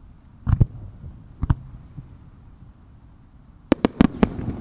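Fireworks going off: three deep booms in the first second and a half, then a quick run of about five sharp bangs from shells bursting near the end, followed by a rolling echo.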